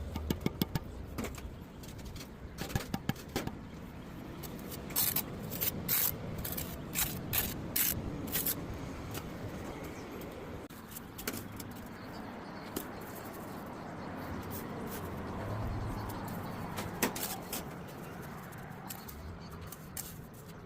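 Hard clicks and knocks, bunched in the first half and densest about five to eight seconds in, then only a few, over a steady low rumble.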